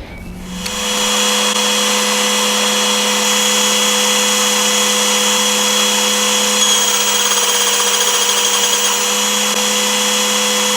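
A motor, like a power tool's, running at one steady pitch, starting about half a second in.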